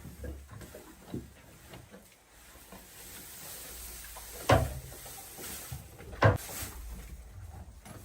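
Two sharp knocks about two seconds apart, over faint rustling.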